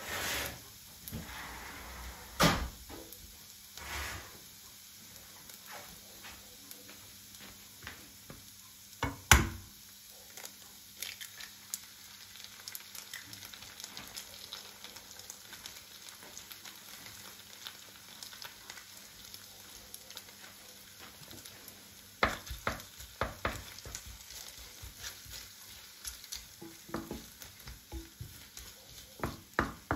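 Food sizzling in a frying pan, with a utensil knocking on the pan now and then: a few knocks in the first seconds, the loudest about nine seconds in, and a run of quick taps and scrapes near the end.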